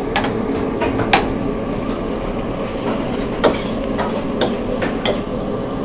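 Pad thai noodles sizzling in a hot steel wok while a metal ladle stirs them, clinking sharply against the wok several times.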